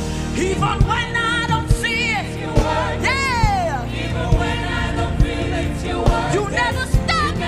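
Live gospel praise-and-worship music: a band with drums and sustained bass and keyboard chords, under a lead singer's melismatic vocal runs and a backing choir. About three seconds in the voice sweeps up and slides down in one long run.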